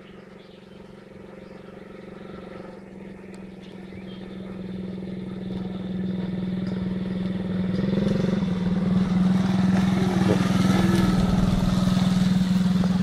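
Engine of a children's quad bike running at a steady pace as it approaches, growing steadily louder and levelling off about two-thirds of the way in as it draws alongside.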